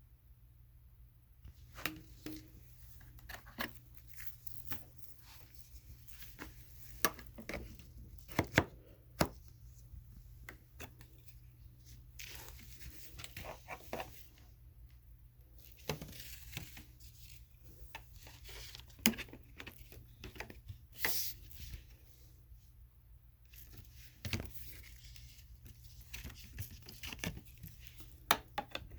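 Handling noises: scattered sharp clicks and knocks with short stretches of rustling, over a faint steady hum. No vacuum motor is running.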